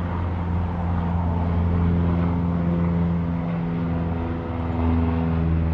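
Steady low engine drone from a motor vehicle, a constant hum with a few held pitches that shift slightly partway through.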